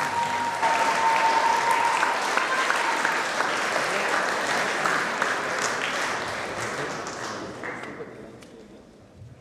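Audience applauding, with a steady high tone over the first couple of seconds; the applause fades out near the end.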